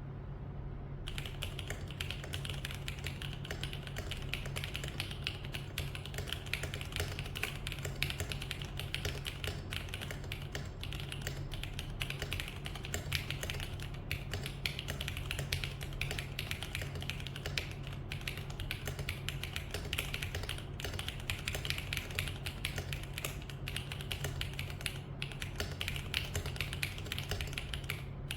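Mechanical keyboard fitted with Gundam keycaps being typed on quickly and continuously, a dense run of key clicks over a steady low hum.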